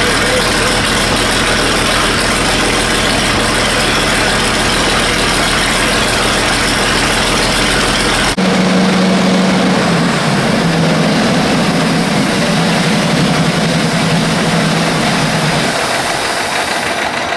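Antique boat engines running, two in turn. An old engine idles steadily, then after an abrupt change a second engine runs louder, with a strong low hum that drops a step in pitch about ten seconds in and fades near the end.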